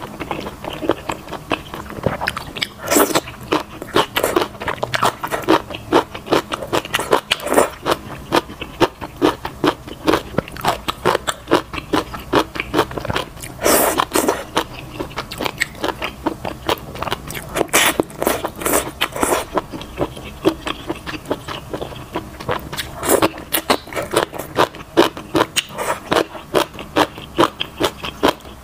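Close-miked eating: wet chewing and smacking of wide potato noodles and vegetables in chilli oil, with a few louder noodle slurps spread through.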